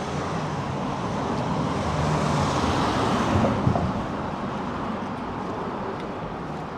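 A motor vehicle driving past on a city street, its engine and tyre noise swelling to a peak about halfway through and then fading away.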